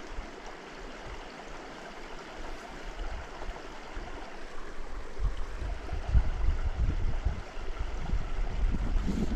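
Creek water running steadily, with low, uneven buffeting on the microphone building from about halfway through.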